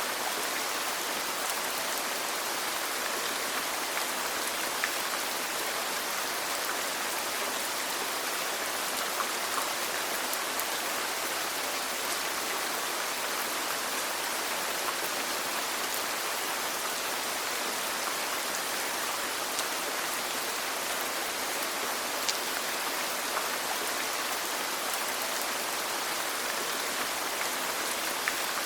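Steady rainfall: an even hiss with scattered faint drop ticks.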